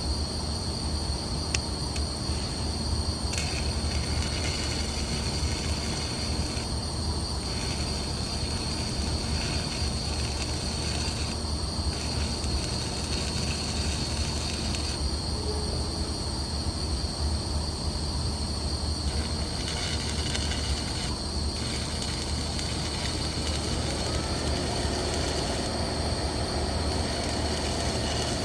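Arc welding on a 1-inch steam pipe: a steady hiss over a low hum, with a constant high whine.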